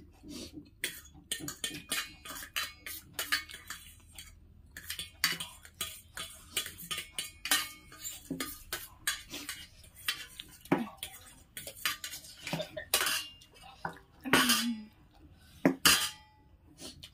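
Metal forks scraping and clinking on steel plates as noodles are scooped up and eaten: a constant run of small clinks and scrapes, with a few louder knocks near the end.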